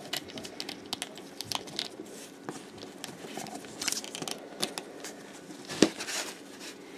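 Handling noise from a McFarlane Toys 7-inch plastic action figure being posed: scattered small clicks and light rubbing as its joints are moved, with one sharper click just before the six-second mark.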